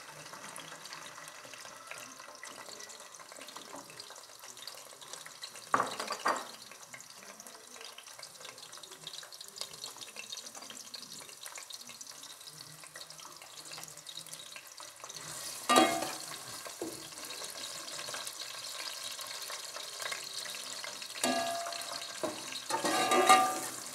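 Sliced onions frying in hot fat in a stainless steel pot: a steady, faint sizzle with one knock about a quarter of the way in, growing louder about two-thirds through. Near the end a metal spoon scrapes and clinks against the pot as the onions are stirred.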